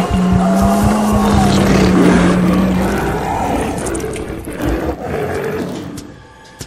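A tiger roaring, as a sound effect, over a steady low electronic tone that stops about three seconds in. The sound fades away near the end.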